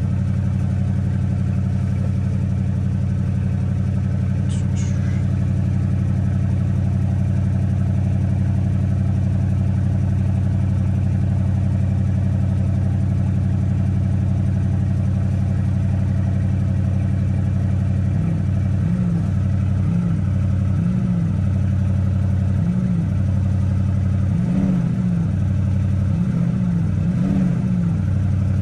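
Porsche Cayenne Turbo S E-Hybrid's 4.0-litre twin-turbo V8 running on a cold start, heard from inside the cabin: a steady idle, then a series of short throttle blips in the last ten seconds, each rising and falling quickly.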